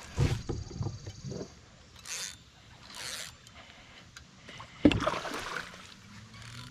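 Hollow knocks and bumps of gear against a plastic sit-on-top kayak hull while a fish is being played, then one sudden loud splash about five seconds in.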